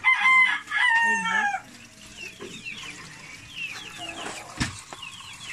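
A rooster crowing once, loud and about a second and a half long, its call falling in pitch at the end. Faint high chirps follow, with a single sharp click near the end.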